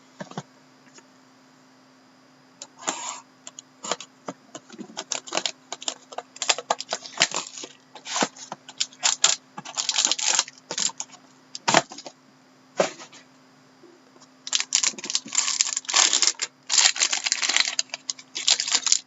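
Trading card box and foil packs being opened and handled: scattered clicks and taps of cardboard, with bursts of crinkling and tearing wrapper, the longest ones near the end.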